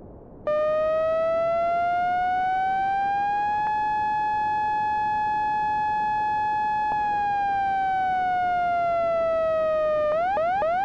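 Electronic siren tone over a faint hiss, used as an emergency-alert attention signal: it rises slowly, holds one steady pitch for a few seconds, slides back down, then ends with three quick rising whoops and cuts off.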